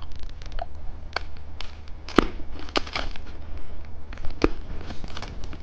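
Plastic candy packaging being handled and unwrapped: irregular sharp clicks and ticks with soft crinkling between them.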